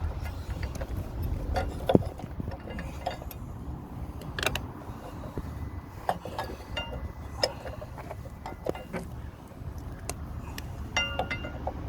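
Scattered light metallic clicks, taps and clinks as brake pads and small caliper parts are handled and set in place at a motorcycle brake caliper, one sharper click about two seconds in and a brief ringing metallic note near the end, over a low steady rumble.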